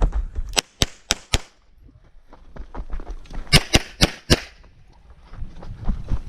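Pistol shots fired in rapid strings: four quick shots about a quarter second apart, a pause of about two seconds, then four more.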